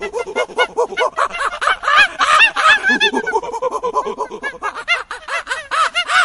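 Monkeys chattering: a fast, unbroken run of short rising-and-falling calls, several voices overlapping at different pitches.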